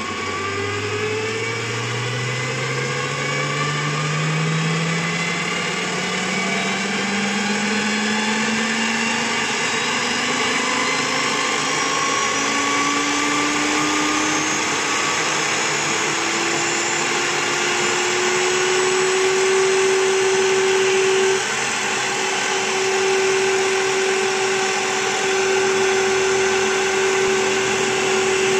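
Einhell BT-TB 13 E Digital bench drill press running, its motor whine climbing steadily in pitch over about twenty seconds as the digital speed control is turned up from its start-up speed of about 600–700 rpm, then holding at a steady speed. Near the end a 4 mm wood bit drills into a multiplex board.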